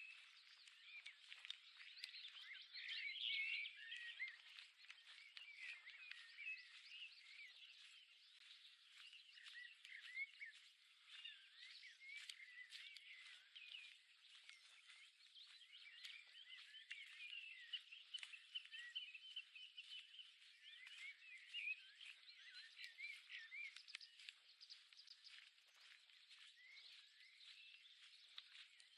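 A faint chorus of songbirds: many short chirps and whistled phrases overlapping without a break.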